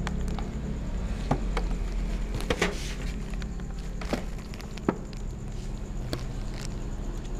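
A cat eating cooked rice from a plastic tub close to the microphone: irregular short clicks and smacks of chewing and licking, over a steady low hum.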